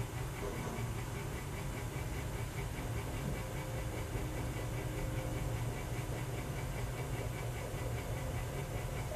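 Steady low hum with an even hiss, unchanging throughout: background room noise.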